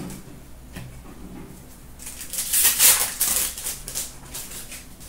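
Trading cards being handled and flicked against one another, a quick flurry of rustling and clicking about two seconds in that lasts a little over a second, then a few softer card sounds.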